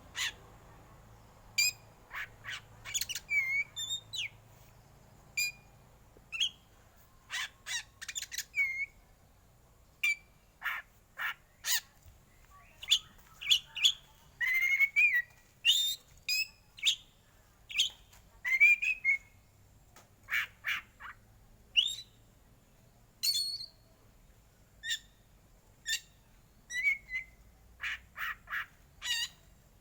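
A black oriental magpie-robin singing a long, irregular string of short, sharp notes, some with quick pitch hooks, in quick succession with brief gaps.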